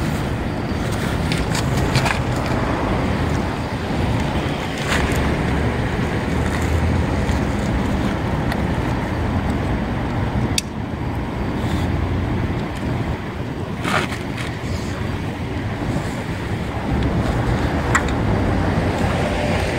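Steady low wind rumble on the microphone, with a few sharp clicks as the car cover's tie-down straps and buckles are handled.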